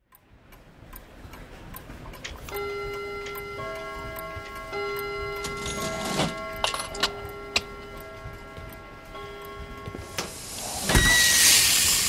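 Pendulum wall clock ticking, over a few steady held tones. Near the end a loud rushing hiss swells in and drowns it.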